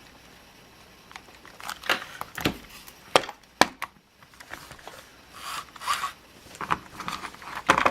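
Hands handling and pressing on a small robot chassis with 3D-printed motor brackets: scattered clicks, taps and light rustling, with two sharp clicks a little after three seconds in.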